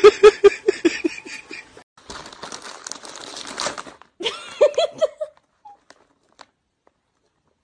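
Rapid laughter fading out in the first second or two, then about two seconds of crinkling rustle, a short giggle about four seconds in, and then silence.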